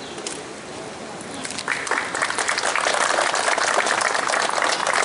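Crowd applauding: clapping starts about a second and a half in and quickly builds to a steady, dense clapping.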